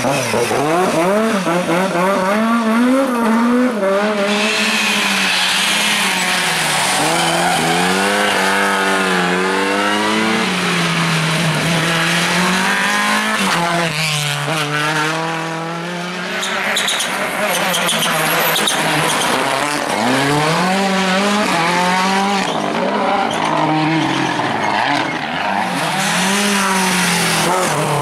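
Rally car engine revving hard, its pitch climbing and dropping again and again through gear changes and lifts, with tyre squeal as the car slides. The sound eases slightly about halfway through before the engine revs up again.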